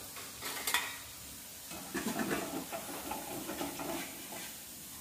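Alu vadi deep-frying in hot oil in a kadhai, the oil sizzling with a steady hiss. A couple of metal clinks come about half a second to a second in.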